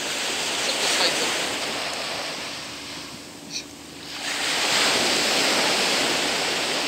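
Surf washing up a sandy beach: one wave's wash swells and ebbs away, and the next surges in about four seconds in and keeps running.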